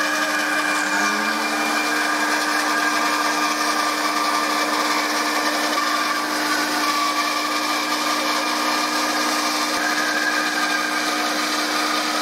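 Bandsaw running steadily as it rips a mahogany board in half lengthwise, the saw working near the limit of its depth of cut. A steady hum with one constant tone under the noise of the blade in the wood.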